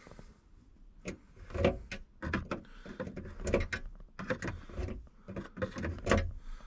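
A hand tool working at the radio and dash trim of a 1975 Plymouth Duster, in irregular clicks, knocks and short scrapes as the factory radio is pried at.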